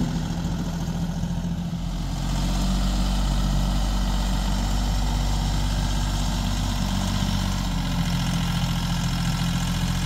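Tractor engine running steadily as the front-loader tractor pushes snow, a low drone that gets a little louder about two seconds in.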